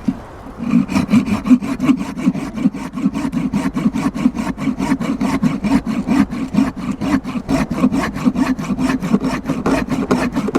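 Hand saw cutting into a resinous pine knot (fatwood), in quick, even back-and-forth strokes of about five a second, starting about half a second in.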